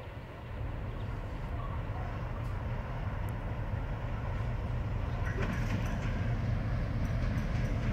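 An EMD G16 diesel-electric locomotive approaching at low speed, its engine running with a steady low drone that grows slowly louder.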